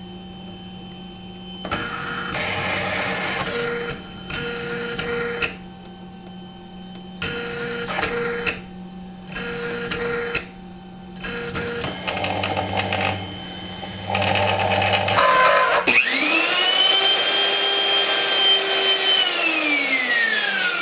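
CarveWright CNC carving machine running, its motors moving in short whining bursts with pauses between them. About 16 s in, a louder motor whine rises quickly, holds steady, then glides down in pitch near the end.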